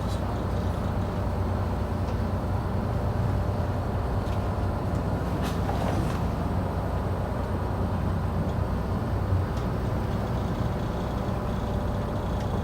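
Nordhavn 50 trawler's diesel engine running steadily underway, a low, even drone. A couple of faint clicks come about halfway through.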